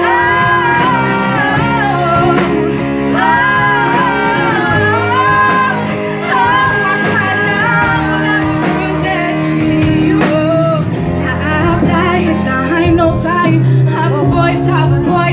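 Pop song: a female lead voice singing long, bending melodic lines over a full instrumental backing.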